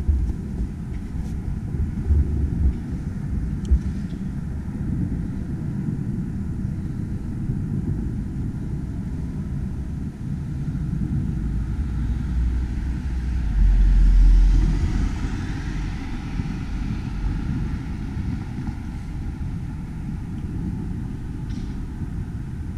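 Distant fireworks going off, heard as a few sharp bangs over a steady low rumble, with a louder rumbling swell about halfway through.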